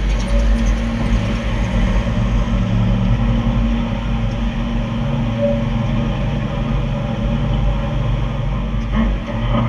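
Kenworth dump truck's diesel engine running steadily as the loaded truck pulls away, its low note changing about three seconds in.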